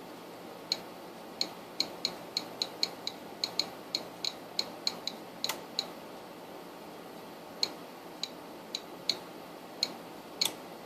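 Relays inside a Korad KA3005P bench power supply clicking as the output voltage is changed. There is a quick irregular run of sharp clicks, several a second, for about five seconds, then single clicks spaced further apart.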